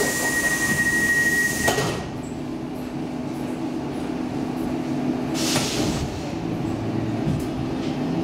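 Stockholm Metro C14 subway car's sliding doors closing at a station. A steady high warning tone sounds over a hiss, and both stop as the doors knock shut about two seconds in. The stopped car then gives a low steady hum, with a short hiss about five and a half seconds in.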